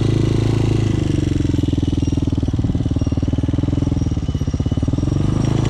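Motorcycle engine running at low speed during tight slow-speed turns, the revs sagging briefly about four seconds in and then picking back up.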